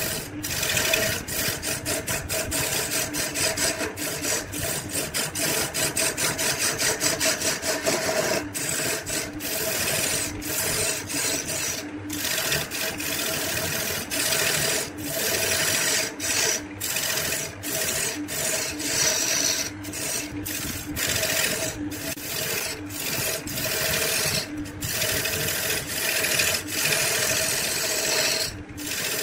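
Wood lathe turning a wooden cylinder while a hand-held turning chisel cuts it: a continuous rasping scrape broken by many brief gaps, over the steady hum of the lathe motor. The gaps come in quick succession during the first eight seconds or so, and more sparsely after that.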